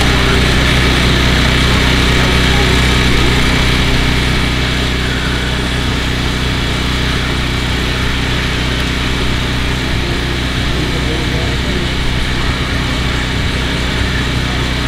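Portable gasoline generator running steadily at a constant pitch.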